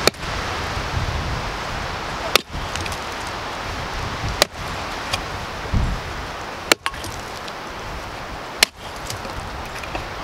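Five chopping blows about two seconds apart: a long-handled blade biting into the charred roots of a burnt-out mimosa stump to split them. Steady wind noise runs underneath.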